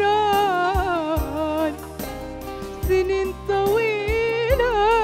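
A woman singing long, ornamented notes with vibrato in Arabic pop style, backed live by a small band of keyboard, acoustic guitar and a hand drum. The drum beats a few strokes under the voice.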